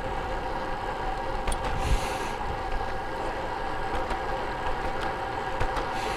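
Road bike rolling along, a steady rush of wind and tyre noise with a faint steady hum, and a few small clicks.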